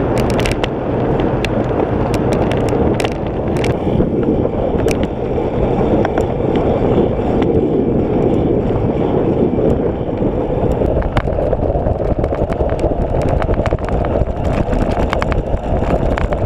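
Wind rushing over a bike-mounted camera's microphone together with road-bike tyre rumble on tarmac at riding speed, loud and steady, with scattered sharp clicks throughout.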